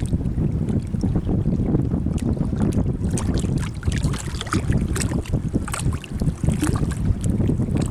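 Wind buffeting the microphone, a heavy, constant rumble, with scattered light crackles over it that may be water.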